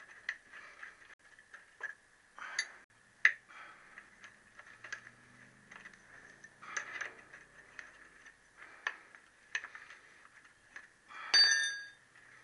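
Spanners clicking and clinking against steel nuts and bolts as an engine plate's fixings are undone, irregular metal taps throughout. Near the end, a louder ringing metallic clink as a tool or bolt is set down.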